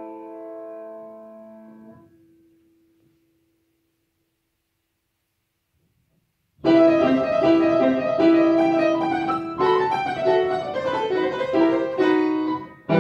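Upright piano: a held chord dies away, then a few seconds of silence, and about six and a half seconds in the next piece begins with quick, loud notes.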